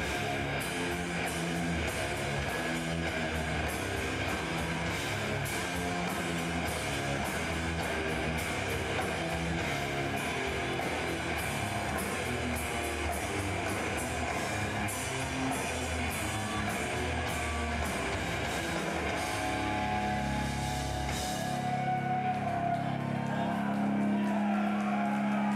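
Death metal band playing live: distorted guitars and bass riffing over fast drumming with cymbals. About three-quarters of the way through, the drums stop and a held guitar chord rings on.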